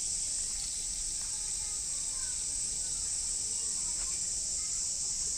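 Chorus of cicadas: a steady, high-pitched drone that does not let up.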